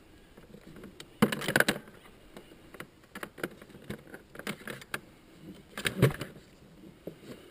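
Tools, cords and metal clips clinking and rattling as hands sort them in a plastic bucket. The clinks come irregularly, loudest about a second and a half in and again about six seconds in.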